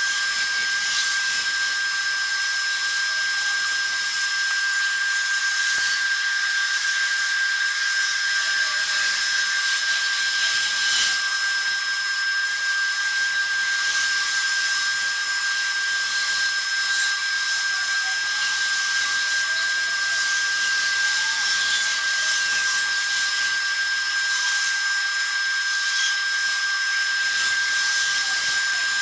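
High-speed train running at a steady high speed: a constant high-pitched whine over an even hiss, unchanging throughout.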